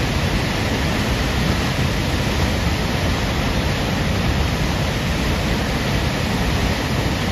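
Tahquamenon Falls' Upper Falls, a wide waterfall of heavy water pouring over a ledge, making a loud, steady rushing sound.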